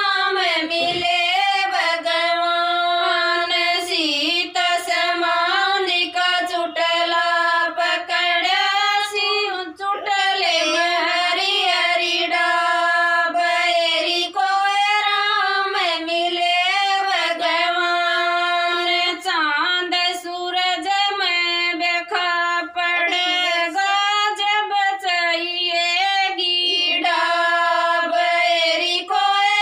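Women singing a Haryanvi devotional bhajan unaccompanied, one steady melody line with short breaks for breath between phrases.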